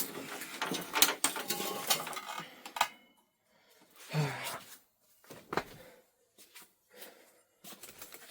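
Parts of a dismantled CRT television being handled, clicking and clattering. There is a dense run of clicks and knocks for the first three seconds, then a few scattered knocks.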